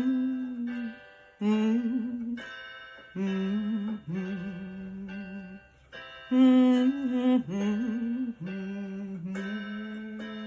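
Music: an interlude of a slow ballad backing track, a melody of held, slightly wavering notes in short phrases over soft accompaniment.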